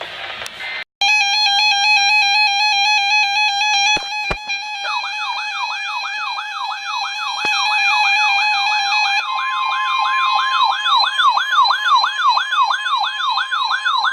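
Emergency alert tones over weather radio. After a second of static a steady buzzing alert tone starts, and about five seconds in a fast siren-like whoop begins, repeating about twice a second. Around nine seconds in, the steady single-pitch National Weather Service warning alarm tone joins it, ahead of a warning broadcast.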